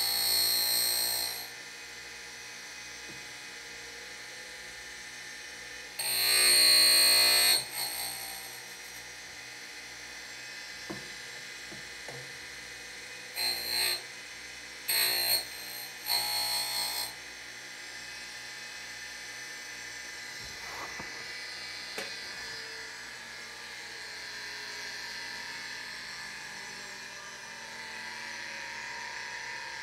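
Surface grinder wheel spinning steadily, with bursts of high-pitched grinding as an end mill's flute is fed against the wheel to sharpen it. There is one burst at the start, a longer pass about six seconds in, and three short touches between about thirteen and seventeen seconds.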